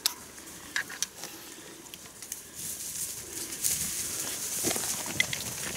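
Rustling through dry leaves and undergrowth with scattered sharp cracks of snapping twigs, the rustle growing louder from about two and a half seconds in: wild boar moving through the scrub.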